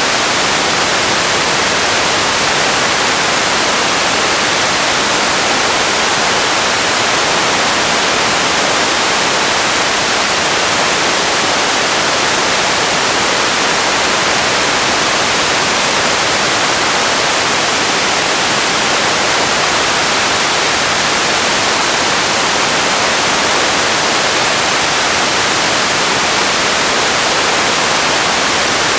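Steady hiss of noise, like static or white noise, weighted toward the high end and unchanging throughout.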